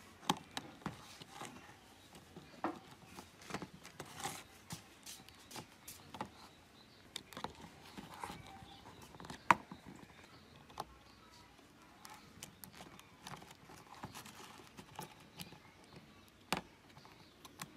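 Irregular small clicks and taps of a precision screwdriver working screws out of a phone's plastic back frame, with the phone being handled on a table. The loudest click comes about halfway through, and another sharp one comes near the end.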